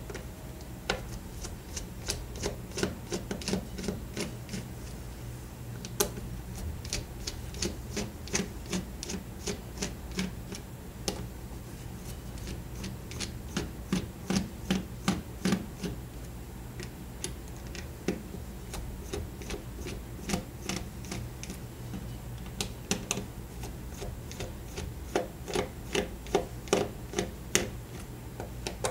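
Small screwdriver unscrewing the tiny back-housing screws of a Samsung Infuse i997 phone: runs of light clicks and ticks, several a second in bunches, over a steady low hum.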